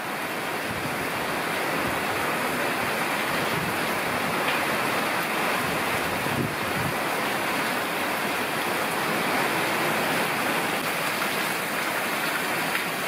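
Heavy tropical downpour from a thunderstorm, rain pouring steadily onto the trees and terrace as an even hiss with no let-up.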